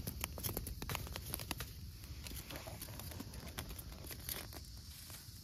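A small fire of dry twigs crackling and snapping, with squirrels singeing on it and the burning sticks poked and shifted with a stick. The crackles are irregular, thickest in the first second or so and again about four seconds in.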